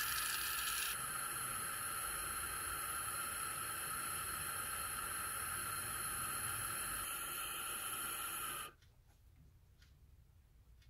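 Jeweller's gas torch running with a steady hiss while it heats a silver ring to solder silver granules; the hiss cuts off suddenly near the end.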